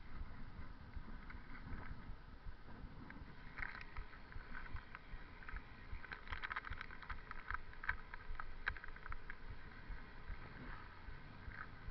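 Riding a bicycle, heard from a handlebar-mounted camera: steady rumble from the tyres and wind on the microphone, with irregular clicking rattles from the bike that are busiest in the middle.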